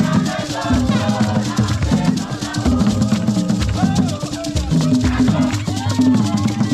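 Ghanaian traditional drum ensemble: several barrel-shaped hand drums played together, with a rattle shaking a fast, steady pulse and voices singing over them.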